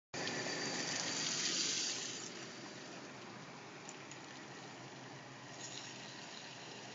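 Ford F-150 pickup backing out of a driveway, heard through a doorbell camera's microphone as a steady rushing noise of engine and tyres. It is loudest at first and eases off after about two seconds as the truck moves away.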